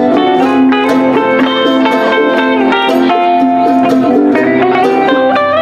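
A live band of guitars playing: strummed acoustic guitar under a quick, picked lead line of short notes.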